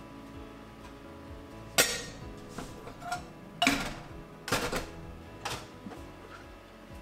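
Soft background music with about five sharp clicks and knocks of kitchen utensils and cookware, the loudest about two seconds in and a quick cluster near the middle.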